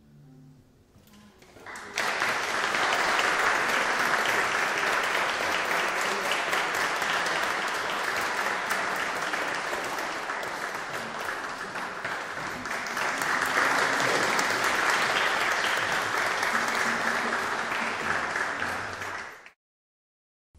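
The last note of a string orchestra dies away, then an audience applauds from about two seconds in, swelling again midway, until the sound cuts off abruptly near the end.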